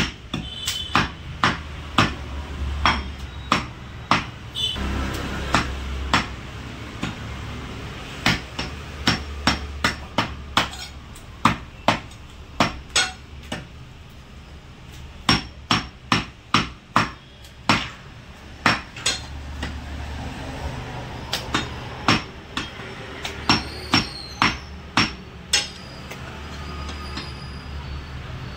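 Heavy butcher's cleaver chopping goat meat on a wooden log chopping block: sharp chops in runs, about two a second, with short pauses between runs.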